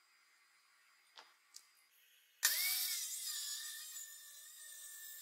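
Abrasive chop saw starting up about two and a half seconds in and cutting through steel square tubing: a loud grinding hiss over a steady whine that eases off slowly. A couple of light clicks come just before, as the tubing is set in place.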